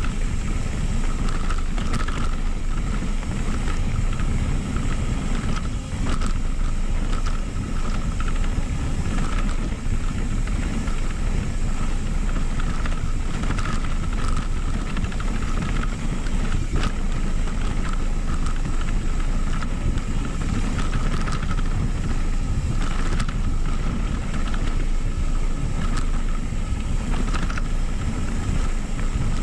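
Mountain bike rolling down a gravel dirt trail: steady rumble of knobby tyres on the loose surface and wind on the microphone, with frequent clicks and rattles from bumps and a steady buzz running through it.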